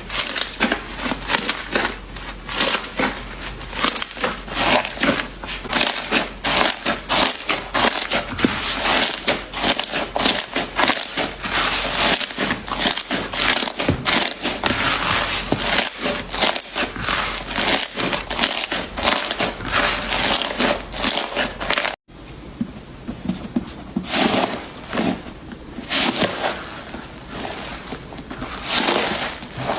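Slime being squished, stretched and kneaded by hand, with dense rapid clicking, popping and crackling. The sound breaks off for an instant about 22 seconds in, and after that the clicks come more sparsely.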